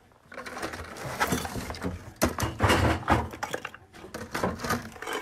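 Clattering and knocking of hard objects being handled and moved around, a quick run of sharp knocks and bumps with a short lull near the end.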